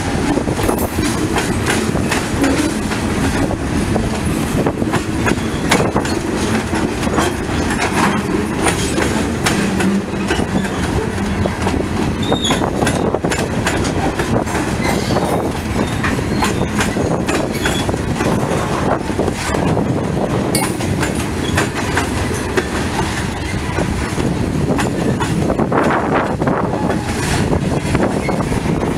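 Covered hopper cars of a slow freight train rolling past, their steel wheels clacking on the rails in a steady, uneven run of clicks, with wind buffeting the microphone.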